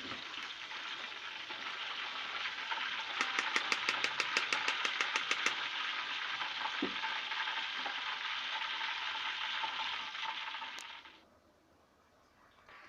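Salted, turmeric-coated quail pieces frying in hot oil in a wok, sizzling steadily. A little after three seconds a rapid clicking runs for about two seconds as the pieces are stirred. The sizzle cuts off suddenly near the end.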